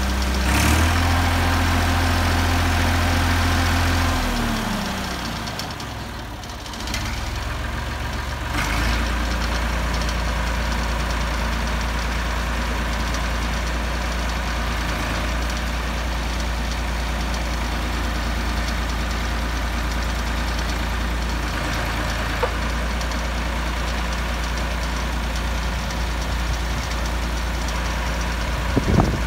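Old Caterpillar 1500 kg forklift engine running. It holds raised revs for about four seconds, then the revs fall away, pick up again briefly near eight seconds, and settle into a steady idle. A short louder burst comes just before the end.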